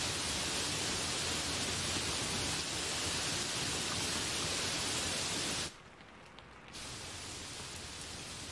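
Heavy rain falling steadily on leafy trees and broad banana leaves, an even hiss. About two-thirds of the way through it drops out suddenly for about a second, then comes back quieter.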